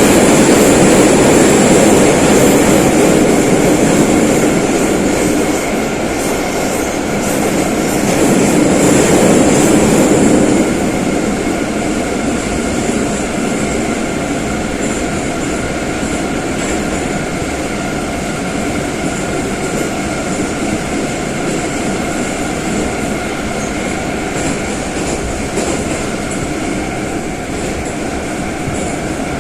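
Metro train of the St Petersburg-built 81-717 'numbered' type running, heard from onboard: a steady rumble and roar of wheels on rail with thin high steady tones above it. It is louder for about the first ten seconds, then drops to a quieter, even running noise.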